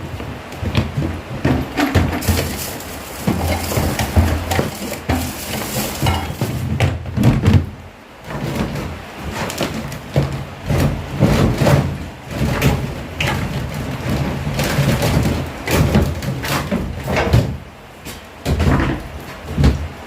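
Electric fan motor humming while something knocks and rattles irregularly throughout, with louder clusters of clatter.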